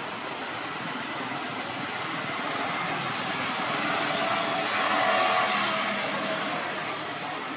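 A steady rushing noise with no clear single source. It swells to its loudest about five seconds in and then fades, with a faint high tone heard twice near the end.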